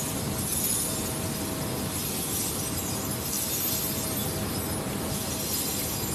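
Steel chips (swarf) clinking and rattling as a broom sweeps them across and off the turning table of a large vertical lathe, over a steady machine hum.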